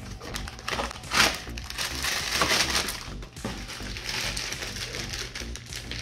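A cardboard cereal box being opened, then its plastic inner bag crinkling as it is handled and pulled open. There is a sharp crackle about a second in, and dense crinkling from about two seconds on.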